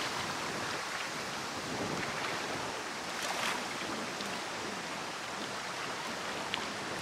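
Wind-driven wavelets lapping on open lake water, a steady rushing wash with a few small splashes, and wind blowing.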